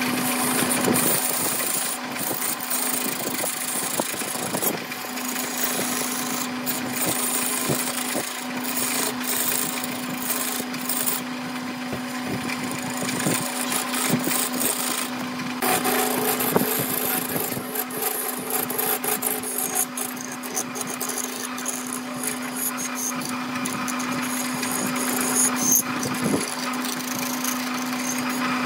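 Wood lathe running with a steady hum while a turning tool cuts the spinning epoxy-resin and bamboo-root blank, giving a continuous scraping hiss that swells and eases as the cut varies.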